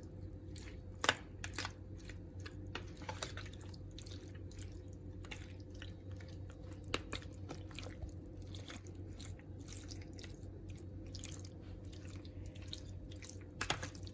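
Raw chicken pieces being mixed with salt, pepper and flour in a bowl: soft wet squishing with scattered small clicks and taps, the sharpest about a second in, over a steady low hum.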